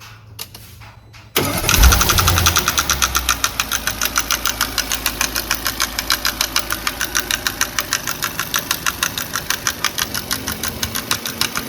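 Audi A8 D5 engine starting about a second and a half in, then running with a rapid, even knock from the cylinder head that sounds like a rocker arm has come loose.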